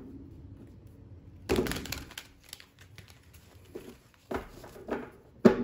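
A deck of tarot cards being shuffled by hand: a quick run of card clicks about a second and a half in, then several short slaps of cards against the deck.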